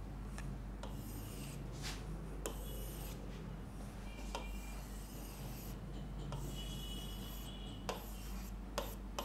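Faint drawing strokes on a board: scratchy, rubbing strokes with a few short squeaks, as a diagram is drawn by hand.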